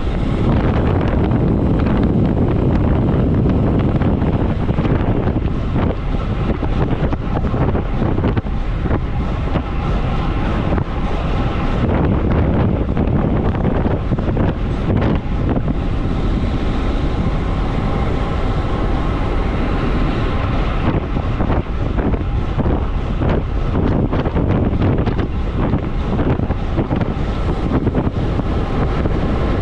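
Loud, steady wind buffeting the microphone of a camera on a road bike descending at close to 60 km/h, a constant low rush with rapid flutter.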